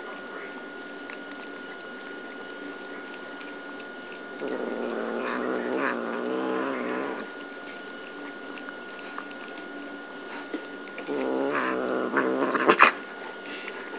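Two domestic cats growling at each other: a long, low, wavering growl from about four seconds in that lasts nearly three seconds, and another near the end. A sharp click cuts in during the second growl.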